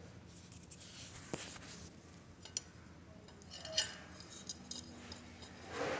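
Light clicks and clinks of small metal motor parts being handled at a workbench, a few sharp ticks with a small cluster just before the middle, while grease is applied to an electric radiator-fan motor.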